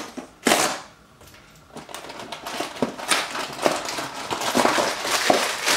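A cardboard box being torn open, then a plastic bag of frozen mini corn dogs crinkling and rustling against the cardboard as it is pulled out and handled.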